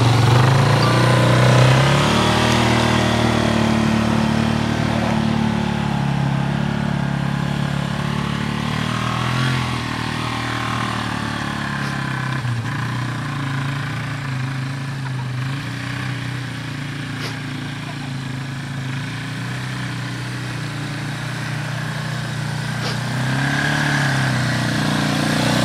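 Yamaha Warrior ATV's single-cylinder four-stroke engine running while it tows a person over snow, its note rising and falling with the throttle. It is loudest at the start and again near the end when the quad is close, and fainter in the middle while it circles farther off.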